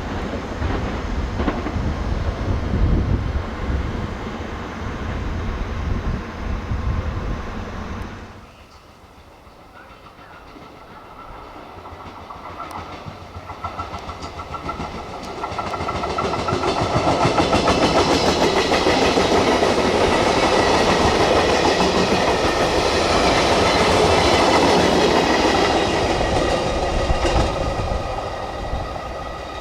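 Passenger train running past at speed, then a sudden cut to much quieter sound about a quarter of the way in. A second train then approaches, passes close by with a loud rush and regular clatter of wheels over rail joints, and begins to fade near the end.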